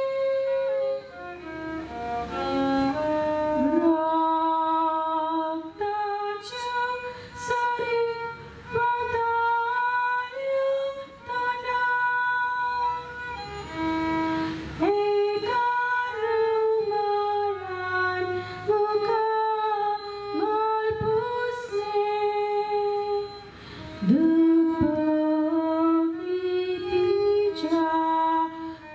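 A woman singing solo, a slow devotional song with long held notes that slide from one pitch to the next, broken by short pauses for breath.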